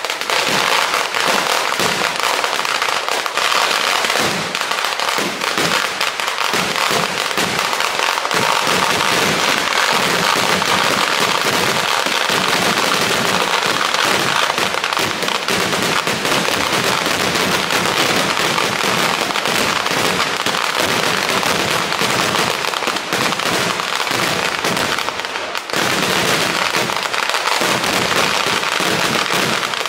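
Kerala temple vedikettu fireworks going off in a dense, continuous barrage of rapid firecracker bangs and crackling, with no pause except a brief slackening near the end.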